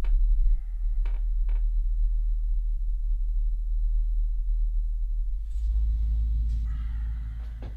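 Deep, steady low drone of a sound-designed film underscore with a thin high tone over it. The drone thickens about five and a half seconds in and fades near the end, with two faint clicks about a second in.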